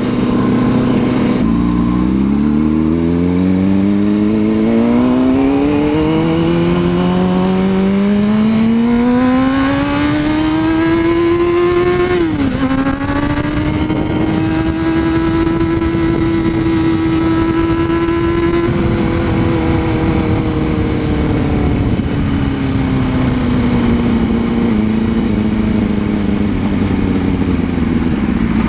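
Honda CBR600RR inline-four sport-bike engine under way. The engine pitch climbs steadily for about ten seconds, drops sharply once about twelve seconds in with a gear change, holds steady for several seconds, then eases off slowly.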